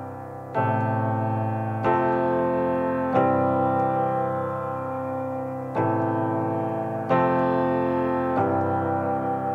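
Background music: slow piano chords, a new chord struck every second or so and left to ring.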